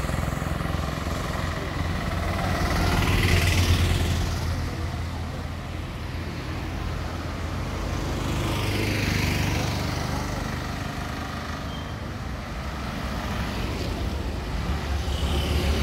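Road traffic going by close at hand, with auto-rickshaws, cars and a van under a steady low engine drone. It swells as vehicles pass, about three seconds in, around nine seconds in, and again near the end.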